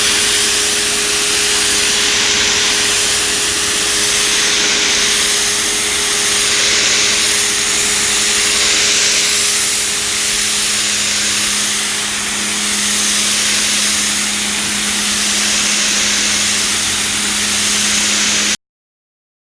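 Ryobi 1700 psi electric pressure washer spraying: a loud, steady hiss of the water jet over the steady hum of its electric motor and pump, swelling slightly now and then. It cuts off suddenly near the end.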